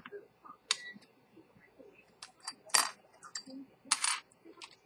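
Small sharp metal clicks and taps from handling an open stainless steel watch case and tools on a workbench, about eight in all, with two brief scrapes, one near the middle and one about four seconds in.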